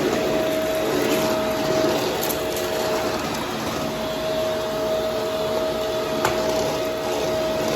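Brushroll vacuum cleaner running steadily, with a constant motor whine under the airflow noise. It gives a few light crackles as it picks up debris, and one sharp click about six seconds in.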